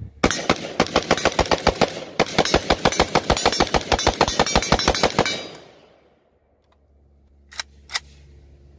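Romanian WASR-10 AK rifle in 7.62×39 firing rapid semi-automatic shots, about six a second, with one brief break about two seconds in. It empties a 30-round magazine in about five seconds, and the echo fades after the last shot. Two sharp clicks follow near the end.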